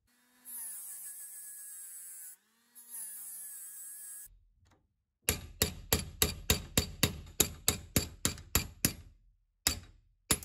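A hammer tapping a steel pin punch, driving the pivot pin out of an antique nail puller: about fifteen sharp metallic strikes at roughly four a second, then two more near the end. Before the strikes there are two stretches of a wavering pitched sound.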